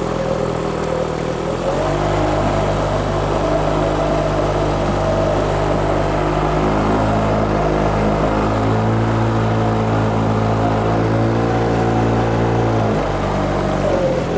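Small tiller outboard motor pushing a jon boat along at speed, running steadily. Its pitch and level rise as it throttles up about two seconds in, and it eases off near the end.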